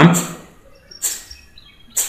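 Two short sharp clicks about a second apart, with faint high chirps between them that sound like a small bird.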